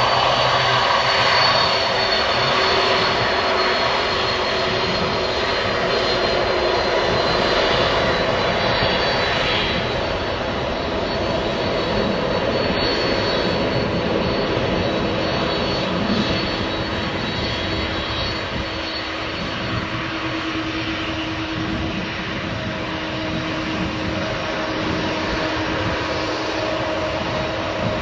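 Boeing 767-300's twin jet engines running at low thrust as the airliner taxis: a steady rumble with a high whine and a lower hum, easing slightly in loudness.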